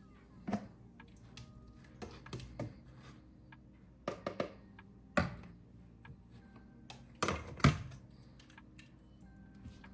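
Kitchen utensils tapping and clinking against a bowl and skillet: a series of irregular clicks and knocks, the loudest about five and seven and a half seconds in.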